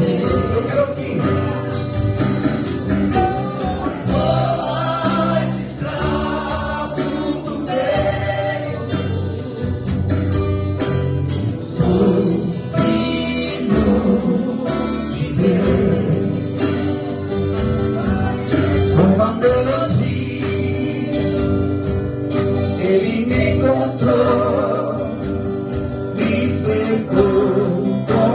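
Live gospel music: a vocal ensemble singing together over a band with a steady beat.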